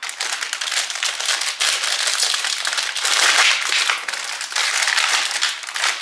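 Plastic snack wrappers crinkling and crackling steadily as packaged cakes are handled and set out into bowls.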